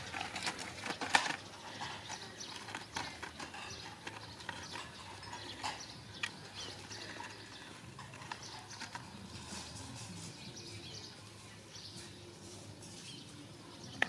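Dogs digging and nosing in dry sandy dirt: a run of short scratching and scraping sounds, densest in the first few seconds and sparser afterwards.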